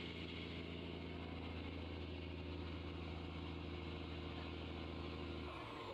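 Fishing boat engine idling with a steady low hum. Near the end the note changes and a whine slides downward in pitch.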